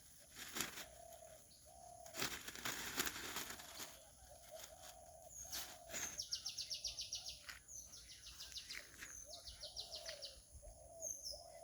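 Birds calling: a songbird gives two fast, even trills, each opened by a short high whistle, over a string of short low calls. A rustle and a few clicks come in the first few seconds.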